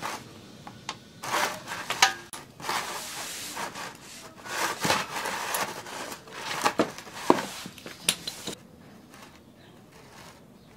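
Ratchet wrench working a motorcycle's oil drain bolt: several short, irregular bursts of ratcheting and scraping with a few sharp metallic clicks, stopping about two seconds before the end.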